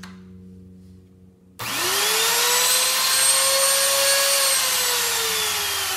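Makita trim router, 530 W, switched on about a second and a half in. It gives a loud whine that climbs quickly as the motor spins up to speed, holds, then sinks steadily from about four and a half seconds in as it is switched off and coasts down.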